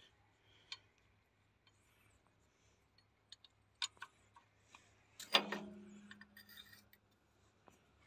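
Wrench and metal fittings clicking and tapping on an excavator's hydraulic pump, in scattered single ticks, then a louder metallic clank about five seconds in that rings on briefly.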